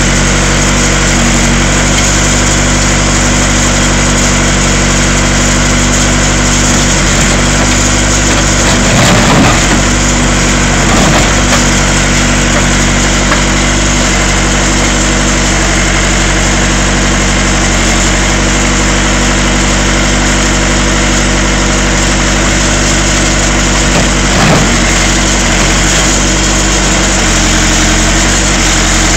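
Case 580 Super E backhoe engine running steadily, with a few brief swells in the engine note around nine, eleven and twenty-four seconds in.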